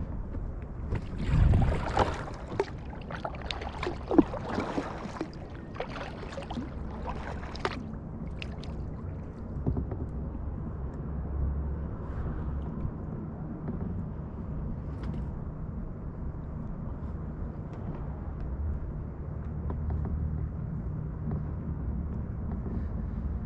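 Kayak paddle strokes splashing in the water, irregular splashes over the first eight seconds or so, then a steady low rumble with only an occasional faint splash.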